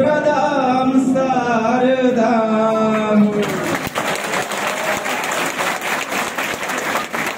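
A man singing, holding out a long wavering note that ends about three and a half seconds in; then an audience applauding.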